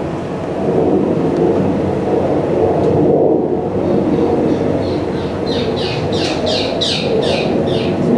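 Recording of birds played back over a pair of loudspeakers: a steady low rumble, then about halfway through a quick run of high chirps, each sweeping downward, about three a second.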